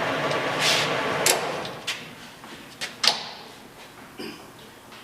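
LeBlond engine lathe running under power feed with a steady gear hum that dies away about a second and a half in. After it fade, several sharp clicks and clunks sound as the levers are shifted.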